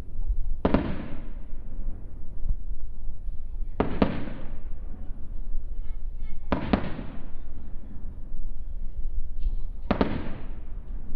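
Aerial firework shells bursting: four sharp booms about three seconds apart, each trailing off in a fading rumble.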